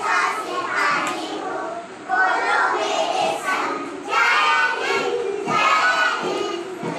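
A group of young children's voices together in unison, in short phrases about a second each, led along by a teacher.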